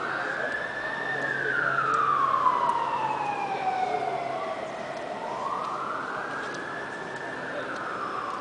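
Emergency-vehicle siren wailing in a slow rise and fall: it peaks about a second in, slides down over the next few seconds, and climbs again about five seconds in.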